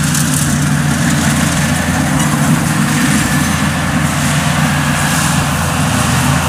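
Kubota DC-70 rice combine harvester running steadily while cutting and threshing rice, its diesel engine droning evenly under load.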